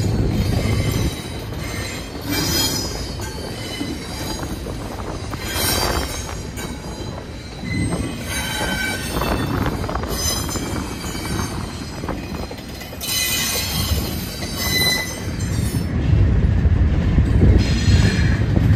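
Double-stack intermodal well cars rolling past, with wheel squeal rising at intervals. About 16 seconds in, a louder, deeper rumble takes over as the train's rear distributed-power locomotive approaches. That locomotive is a KCS GE ES44AC (GEVO) diesel.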